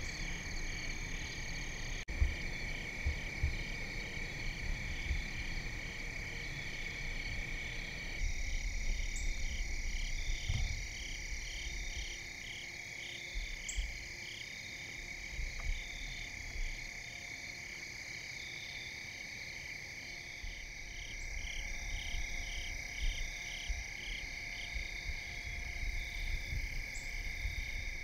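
Evening chorus of crickets and other insects: a steady high trill with rhythmic pulsed chirps layered over it, shifting abruptly about eight seconds in. A sharp click about two seconds in, and faint low rumbles underneath.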